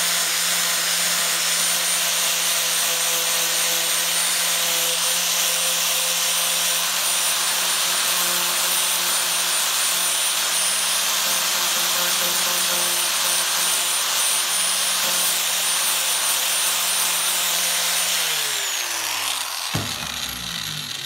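Angle grinder with a sanding disc running steadily and grinding a V-groove into a crack in a fibreglass panel. About three seconds before the end it is switched off and its pitch falls as it spins down, with a single knock as it stops.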